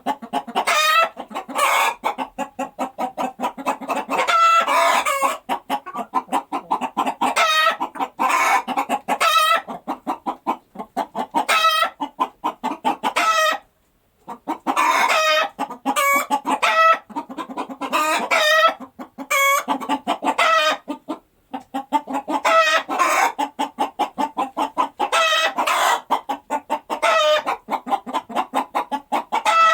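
Hens clucking and cackling in dense runs of quick, rapidly repeated calls, with one brief pause about halfway through.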